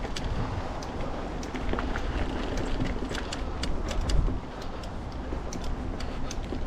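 Mountain bike riding over rocky, rooty singletrack: a steady low rumble of tyres on the trail with many sharp clicks and rattles from the bike as it goes over the bumps, and a harder jolt about four seconds in.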